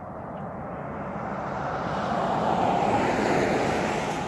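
A pickup truck passing close by on the highway: tyre and engine noise swells to a peak about three seconds in, then fades as it goes by.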